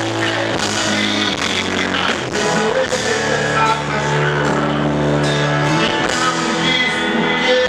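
A band playing a romantic Portuguese-language song, with guitar and singing.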